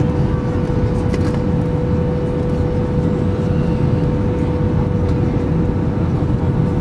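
Airbus A320 cabin noise on approach to landing, heard from a window seat: a steady low rumble of engines and airflow with a steady hum-like tone running through it.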